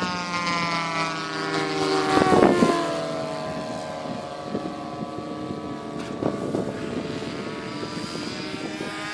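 Engines of radio-controlled scale model Spitfire and Hurricane warbirds on a low pass, their drone falling in pitch as they fly by, loudest about two seconds in, then running on steadily farther off.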